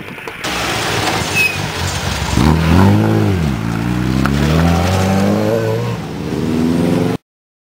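Rally-prepared BMW E36 3 Series saloon accelerating hard away from a standstill. The engine revs rise and fall about three seconds in, then climb twice more, and the sound cuts off suddenly near the end.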